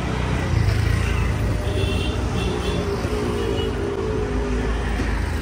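Busy street traffic: a steady low rumble of passing motor vehicles, with a few short high tones about two seconds in.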